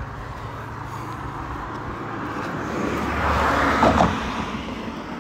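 A car driving past on the road over the bridge: its tyre and engine noise swells, is loudest about four seconds in, then fades away.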